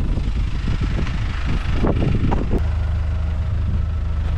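Camper truck's engine idling steadily, heard beside the rear wheels; for the first two and a half seconds it is mixed with irregular handling and rustling noise, then it runs on alone.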